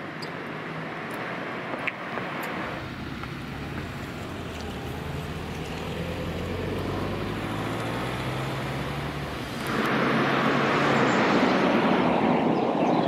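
Motor vehicle engine and traffic noise: a low engine hum builds over several seconds, then a much louder rushing vehicle noise starts abruptly about ten seconds in.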